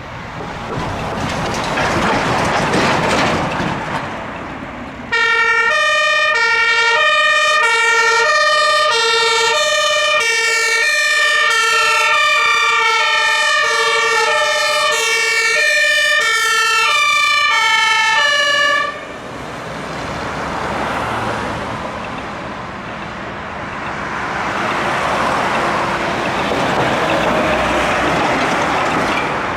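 Fire engine's two-tone Martinshorn siren, switching back and forth between its two tones; it comes in suddenly about five seconds in and cuts off abruptly some fourteen seconds later. Before and after it, vehicle engine and tyre noise rises and fades as the vehicles drive past.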